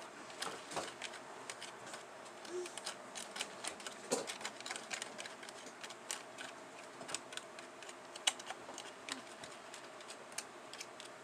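Light, irregular clicking and tapping against a thin plastic candy-kit tray as candy dough is mixed and pressed by hand, with a sharper click now and then.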